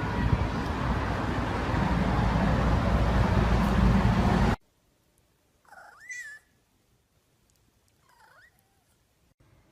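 A steady rushing noise that cuts off suddenly, then a cat meows: one wavering call that rises in pitch, and a fainter, shorter falling meow about two seconds later.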